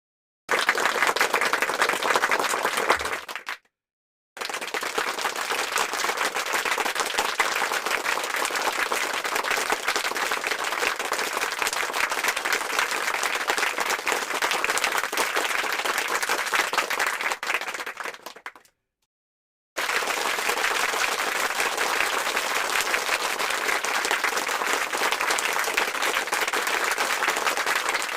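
Audience applause: three separate stretches of dense crowd clapping, a short one, then a long one, then another, with brief silences between them.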